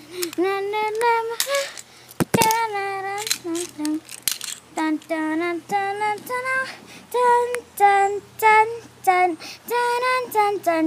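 A child singing a tune without clear words. A brief clatter comes about two seconds in.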